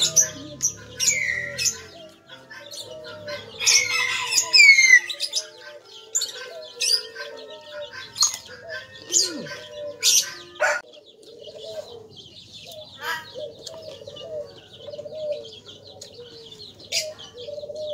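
Birds chirping and calling throughout, with quick rising and falling whistles a few seconds in. Scattered sharp crunchy clicks of chewing crisp raw vegetables close to the microphone.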